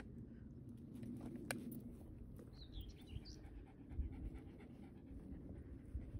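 A dog panting steadily during a walk. A bird chirps briefly about two and a half seconds in.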